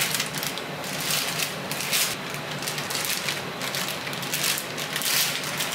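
Clear plastic vacuum-pack bags crinkling and rustling irregularly as sliced pork is packed into them by hand.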